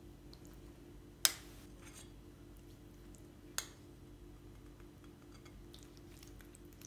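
Metal spoon clinking against a glass bowl as sauce is spooned out: a sharp clink about a second in, a second softer one a couple of seconds later, and a few faint ticks after that.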